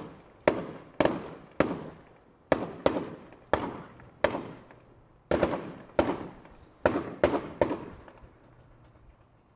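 Fireworks exploding in the sky, about a dozen sharp bangs at an irregular pace of one or two a second, each trailing off in an echo. The bangs stop about three quarters of the way through, leaving the echoes to die away.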